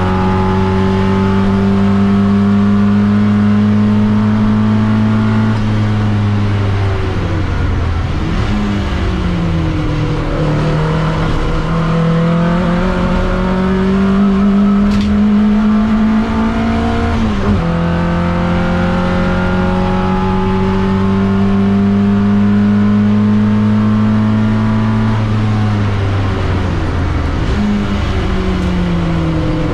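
TVR Vixen race car's engine heard loud from inside the cockpit at racing speed. It is held high and slowly climbing on the straights, falls away with quick dips and rises twice as it changes down for corners, and drops sharply about 17 seconds in at an upshift before climbing again.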